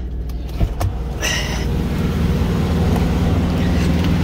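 Diesel semi-truck engine idling with a steady low hum. A few sharp clicks come in the first second and a brief rustle about a second and a half in, after which the hum is a little louder.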